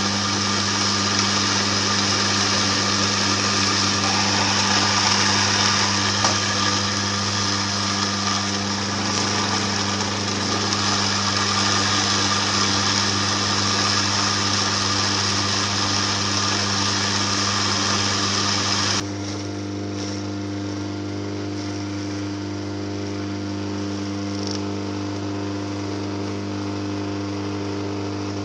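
Electric masticating juicer running steadily, grinding cacao nibs into liquid chocolate, a motor hum with a hissing grind over it. About two-thirds through, the hiss drops off suddenly and the motor hum carries on.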